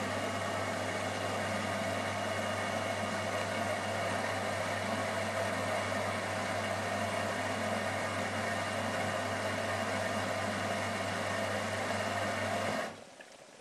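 Privileg Ergonomic 1600 S washing machine running with its drum turning, a steady mechanical rumble over a low hum; the drum bearing is badly worn. The running cuts off abruptly near the end.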